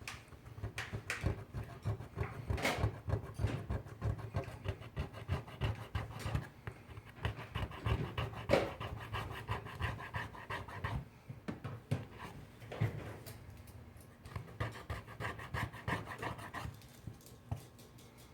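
Rapid back-and-forth scrubbing on a phone, working away adhesive softened with an MEK substitute, in quick uneven strokes with a few harder ones.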